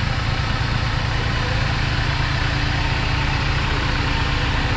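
A 4x4 vehicle's engine running steadily, a low, even drone with no change in pitch.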